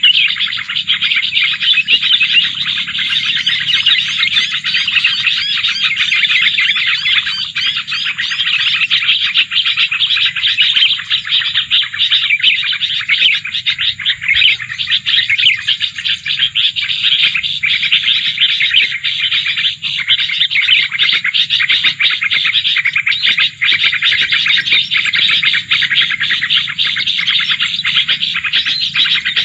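Dense, continuous chirping and twittering of small birds, many quick calls overlapping with no pause.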